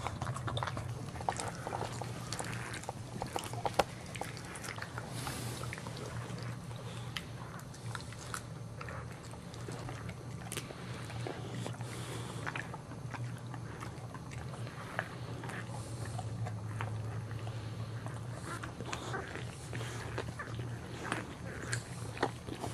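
Boxer bitch licking and mouthing her newborn puppy to clean it after whelping: irregular wet licking and smacking clicks, over a steady low hum.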